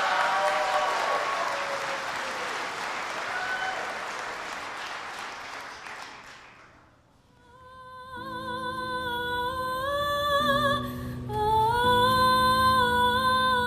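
Audience applauding, dying away over about six seconds. About eight seconds in, soft music begins: a slow melody of held, wavering notes over low sustained chords.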